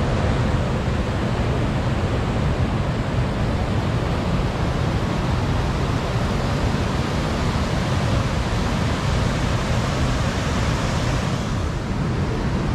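River water rushing over rocky rapids: a steady, even rush of noise that turns a little duller near the end.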